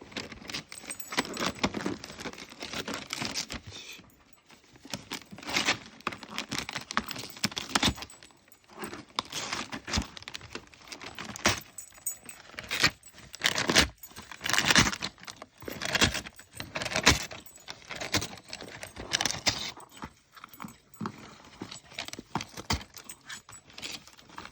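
Gift paper crinkling, rustling and tearing in irregular bursts as a dog rips open a present with its mouth.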